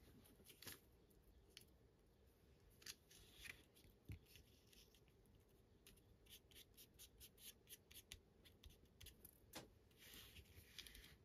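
Faint handling of paper and craft tools: scattered small sharp clicks, a quick run of them through the middle, and a short papery rustle near the end.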